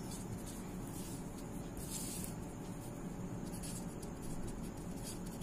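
Pen writing on a sheet of paper: faint, short scratching strokes as a word is handwritten.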